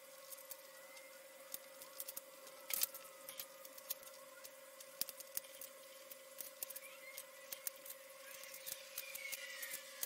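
Graphite pencil drawing light strokes on paper: faint, irregular scratches and ticks of the lead, over a faint steady hum.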